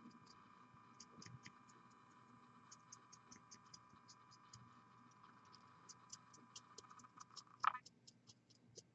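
Near silence: a faint steady hum that cuts out near the end, with many faint small ticks scattered throughout.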